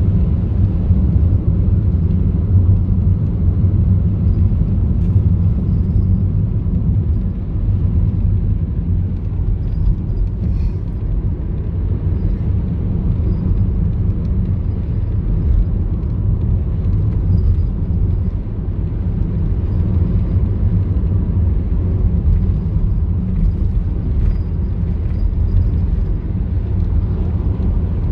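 Car driving along the road: a steady low rumble of tyres and engine.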